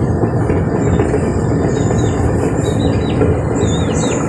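A loud, steady rushing noise with no rhythm. From about two seconds in, a bird gives short falling chirps, one roughly every half second.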